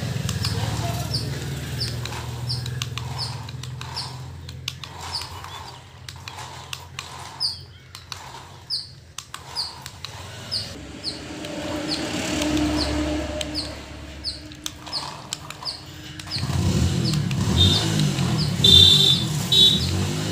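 A small bird chirping over and over, short high chirps about two or three a second, each dropping slightly in pitch. Under it runs a low hum that grows loudest over the last few seconds.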